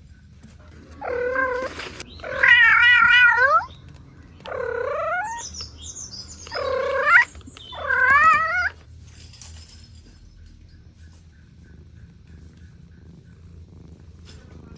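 A cat meowing five times in a row, each call a second or so long, the second and the last wavering in pitch; the second call is the loudest.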